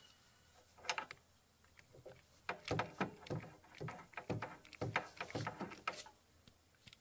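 Metal wrench clinking and scraping against bolts on a motorbike engine as they are worked loose: a couple of short knocks about a second in, then a quick run of metallic knocks and scrapes that stops about a second before the end.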